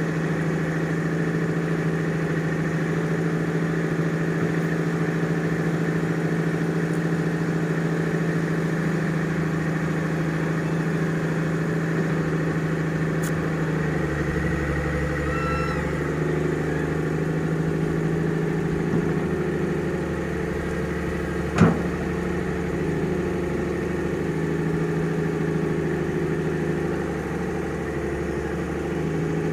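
Engine of heavy earth-moving machinery running steadily. Its tone shifts lower about halfway through, and a single sharp knock stands out a little after two-thirds of the way in.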